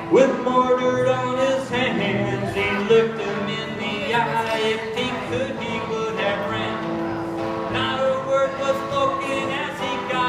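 Solo live performance: a man singing into a microphone while strumming an acoustic guitar.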